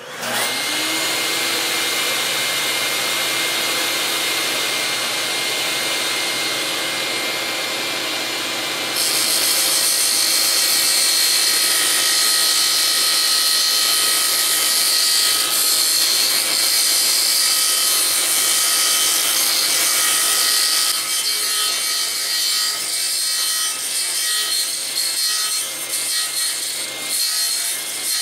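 Table saw switched on and spinning up to speed. About nine seconds in its blade starts cutting a groove into a small quarter-inch oak wheel, which is turned by hand on a pivot peg over the blade. The cutting sound is steady at first and wavers later on as the wheel is rotated.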